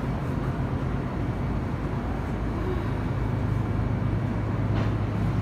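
Metro-North commuter train at the platform, a steady low hum over a rumble that grows a little stronger about three and a half seconds in.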